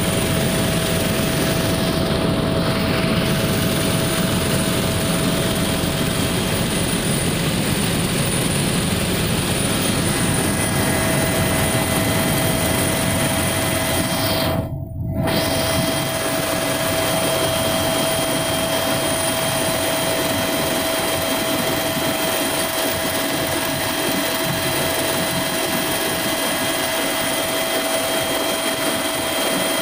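Helicopter engine and rotor noise heard inside the cabin in flight: a steady, dense drone with a constant whine. The sound breaks off for a moment about halfway through.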